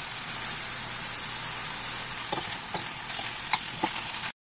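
Chicken strips sizzling in hot oil in a stainless steel frying pan, a steady hiss, with a spatula scraping and tapping the pan several times from about two seconds in. The sound cuts off suddenly just before the end.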